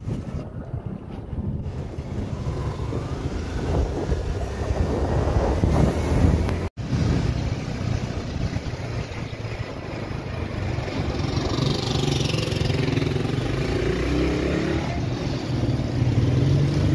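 Motorcycle engine running steadily while riding along a street, with road and wind noise. The sound cuts out for a moment about seven seconds in.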